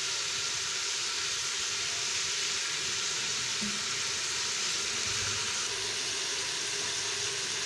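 Chicken with onion, tomato and spices sizzling steadily in hot oil in an aluminium pressure cooker pot as it is browned (bhuna stage of a curry).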